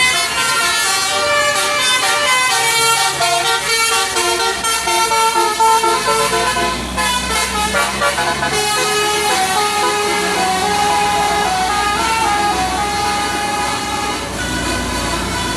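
A bus's 'telolet basuri' musical air horn playing a melody. The notes change quickly for the first several seconds and are held longer after that, with a low rumble growing underneath near the end.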